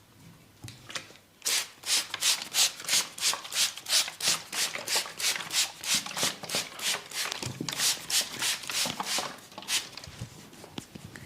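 Hands rubbing briskly over skin and hair in a massage: a fast, even run of short swishing strokes, about three a second, starting about a second and a half in and tailing off near the end.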